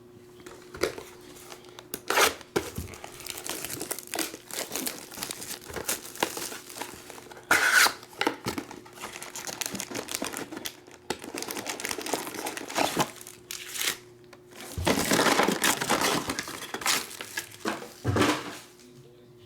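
Trading-card pack wrappers being torn open and crinkled in the hands, an irregular run of rustling and crackling with a longer, louder stretch of crinkling near the end.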